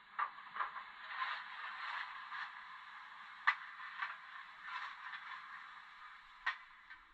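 Model railway steam locomotive and its coaches moving slowly on the track: a steady scraping hiss with scattered sharp clicks, the loudest about three and a half seconds in and another near the end.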